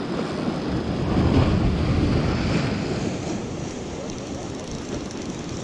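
Wind buffeting the microphone, mixed with the rustle of a jacket close against it as an angler handles his rod and spinning reel. It is a steady, rough noise, heaviest in the low end.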